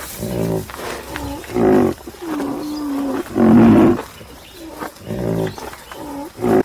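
A large animal calling repeatedly: short, deep calls, the loudest two about two seconds apart, with softer calls between.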